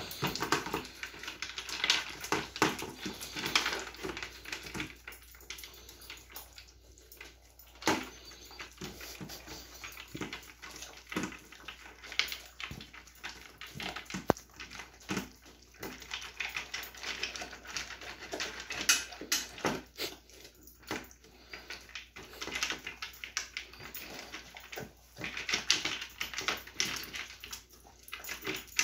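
Dog eating kibble from a plastic slow-feeder bowl: an irregular run of clicks and clatters as the food rattles in the bowl.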